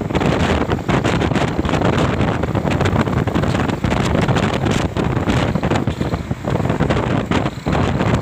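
Heavy wind buffeting the microphone over vehicle noise, as from a camera on a moving motorcycle.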